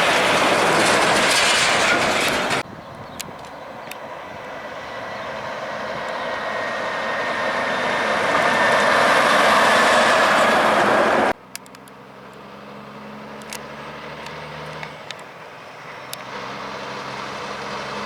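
Heavy trucks driving past on a road: loud engine and tyre noise that cuts off suddenly, then another truck approaching and building steadily in loudness before cutting off again. After that, a quieter truck engine with a low, pitched drone slowly grows louder.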